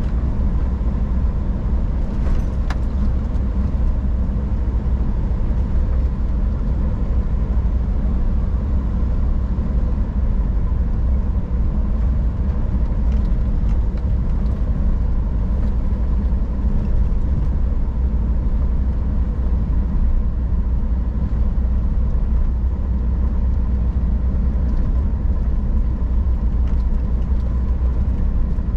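Scania R440 truck on the move, its diesel engine running at a steady low drone with road noise and no change in speed or revs.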